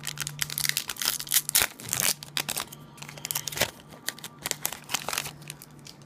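Foil wrapper of a Yu-Gi-Oh booster pack crinkling and tearing as it is ripped open by hand, a dense run of sharp crackles that dies down after about five seconds as the cards come out.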